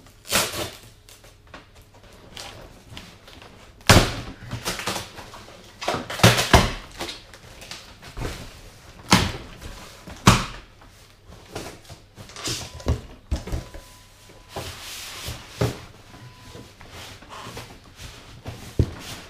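Cardboard box being opened and handled: flaps flexing and scraping, with a string of sharp thuds and knocks as the packed contents are shifted. The loudest knocks come about 4, 6, 9 and 10 seconds in.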